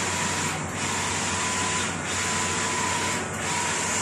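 Mutoh XPJ1682SR wide-format inkjet printer printing: a steady whirring hiss with a thin whine, rising and falling briefly about every 1.3 seconds as the print-head carriage shuttles back and forth.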